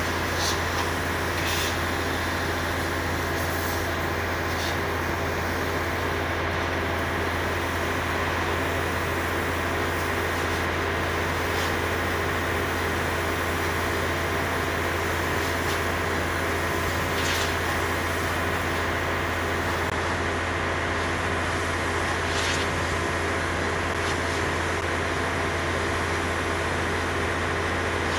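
Compressed air hissing steadily from a hand-held blow-gun nozzle as it blasts dust off a machine deck, over the steady drone of a large engine or compressor running.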